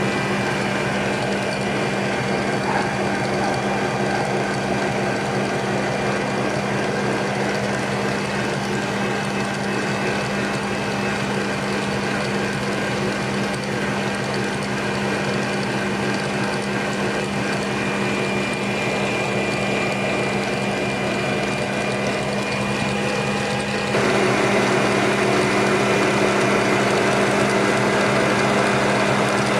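Electric stand mixer running steadily, its whisk beating cream into chantilly. About 24 s in, the motor note changes and gets louder.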